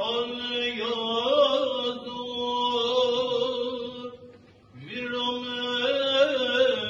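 A rabbi's solo male voice chanting a prayer, holding long notes that bend slowly between pitches. There is a short breath pause about four and a half seconds in.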